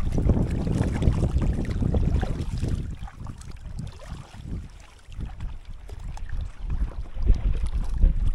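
Wind buffeting the microphone in uneven gusts over water sloshing and splashing around someone wading waist-deep in the sea. The gusts ease off briefly about four seconds in, then pick up again.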